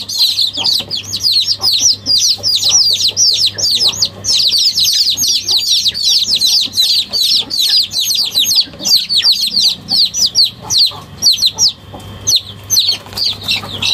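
A dense chorus of high-pitched bird chirps, many short downward-sliding calls overlapping several times a second without a break, over a faint steady low hum.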